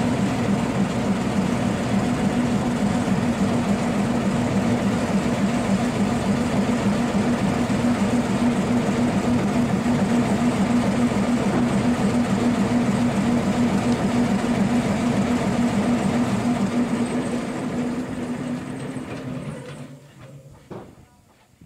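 Diesel engine of a MaK 450C shunting locomotive running at a steady low speed, a constant pitched hum, fading away near the end.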